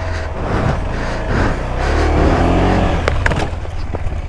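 Motorcycle engine running under load, its pitch rising and falling as it revs, with a few sharp clicks about three seconds in.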